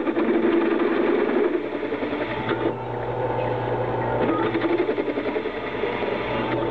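Drill press running with a steady motor hum while its cobalt twist bit cuts into a steel rail, a rough continuous scraping of the cut over the hum.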